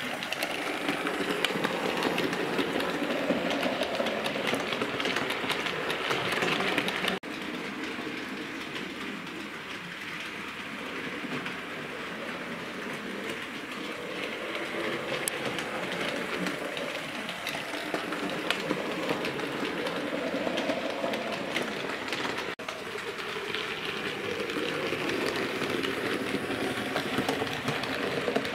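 Bachmann OO gauge Class 56XX tank locomotive model running on the layout: its small electric motor whirs, the pitch rising and falling with speed, and its wheels click over rail joints and points. The sound breaks off abruptly twice, about seven seconds in and near the end.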